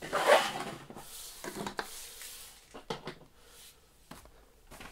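Boxed toy figures in cardboard-and-clear-plastic window packaging being handled and set down: a loud rustle near the start, then shorter rustles and a few light knocks of the boxes being placed.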